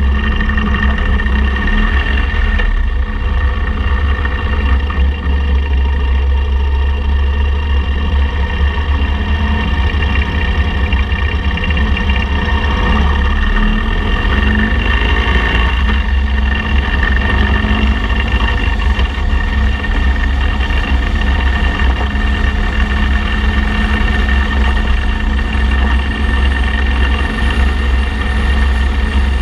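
Motorcycle engine running steadily on the move, under a heavy low rumble of wind on a bike-mounted microphone. The engine note shifts in pitch about halfway through.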